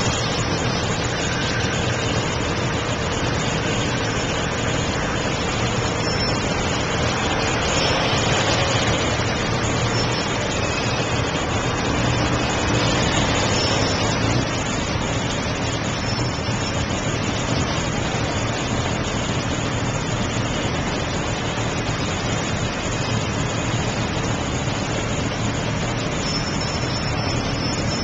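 Steady road traffic noise in queued traffic at a junction: nearby vehicle engines idling and running, with a low engine hum underneath.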